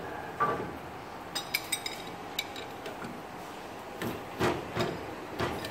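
Scattered light metallic clinks and knocks of metal parts being handled as an ultrasonic welding horn is threaded by hand onto the machine's stack.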